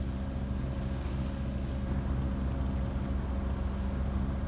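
A sailing yacht's inboard engine running steadily under motor: a low, even drone.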